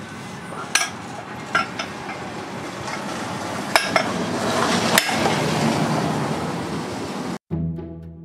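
Hammer striking the end of a wooden axe handle, driving it down into the eye of a hand-forged axe head: about six sharp knocks at uneven spacing over a steady background noise. Near the end it cuts abruptly to music with a drum beat.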